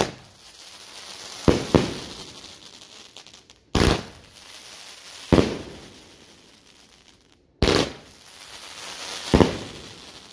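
A 25-shot fan cake firework firing its shots one after another, about seven sharp launch reports with roughly a shot every one and a half to two seconds, each dying away over about a second.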